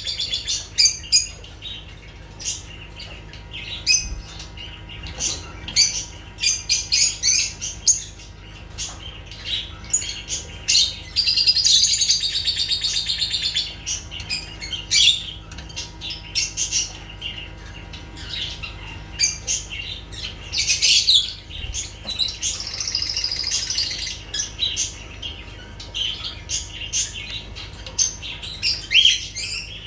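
Lovebirds chirping and chattering: many quick, high-pitched chirps, with a few longer stretches of dense chatter.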